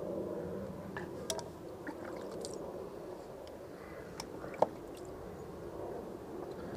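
Water sloshing and dripping in a plastic tub as a hand dips in, then a wet Mora knife blade being wiped clean of stone grit, with a few light clicks of handling and one sharper click about four and a half seconds in.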